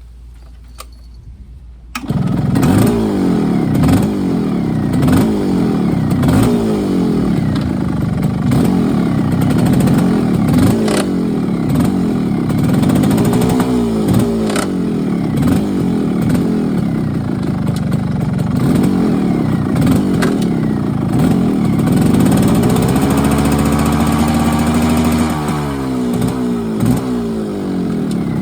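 A vehicle engine catches about two seconds in and is then revved up and down again and again, roughly once a second, with some light clattering. Near the end it is held at steady higher revs for a couple of seconds, then drops back. It is run as a check for an abnormal noise from the transmission.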